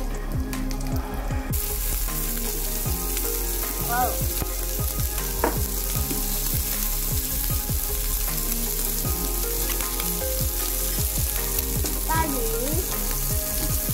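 Strips of pork belly sizzling steadily on an electric grill plate. The sizzle comes in about a second and a half in.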